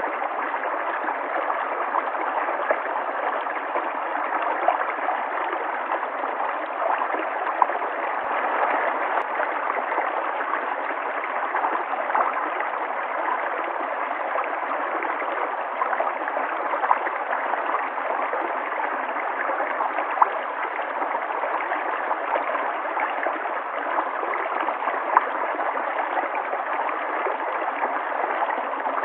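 River water flowing and gurgling over rocks in a steady rush, with small splashes now and then.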